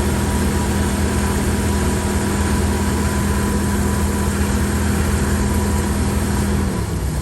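A 1986 Ford Econoline RV's engine idling steadily with a constant low hum; the revs drop slightly near the end.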